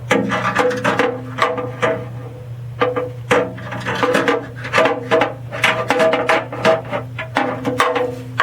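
Instrumental background music: a run of quick, pitched struck or plucked notes, several a second, over a steady low tone.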